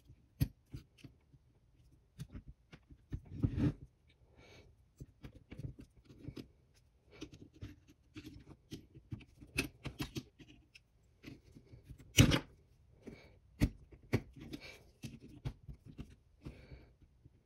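Small metal carburetor parts and hand tools clicking and scraping as the linkages are refitted: irregular sharp clicks and short rasps, the loudest click about twelve seconds in.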